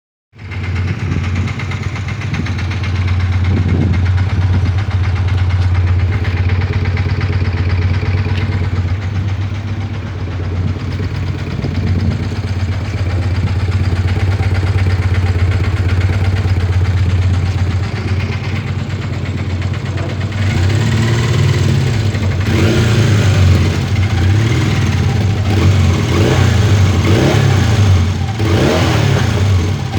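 Honda CB 450 DX motorcycle's parallel-twin engine breathing through an aftermarket Roncar exhaust, idling steadily for a long stretch. After that the throttle is blipped repeatedly, the revs rising and falling several times near the end.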